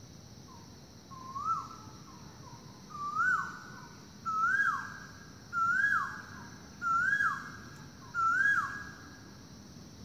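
Asian koel calling: a series of six two-part 'ko-el' notes, each rising then dropping sharply, about one a second, starting about a second in and growing louder over the first few.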